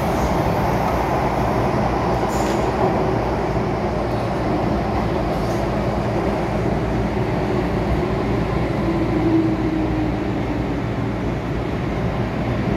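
MTR M-Train electric metro train running, heard from inside the passenger car: a steady rumble of wheels and running gear, with a faint whine that rises briefly about two-thirds of the way through.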